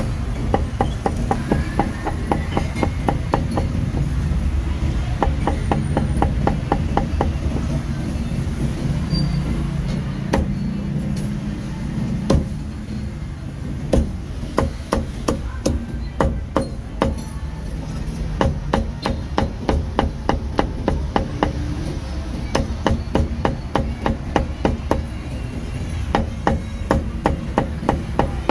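Heavy meat cleaver chopping braised pork intestines on a thick round wooden chopping block, in quick runs of about four strokes a second with short pauses between runs.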